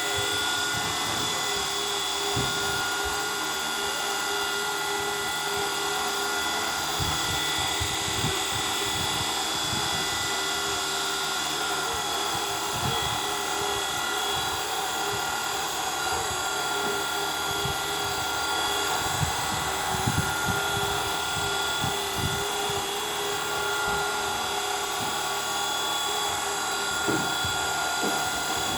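Small electric RC helicopter motor and rotor running steadily with a high-pitched whine, with occasional light knocks underneath.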